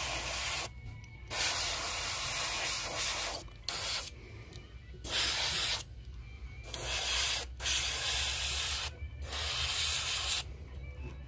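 Airbrush spraying water-based airbrush paint, a steady hiss of air and paint that starts and stops as the trigger is worked, in bursts of one to two seconds with short pauses between, over a low steady hum.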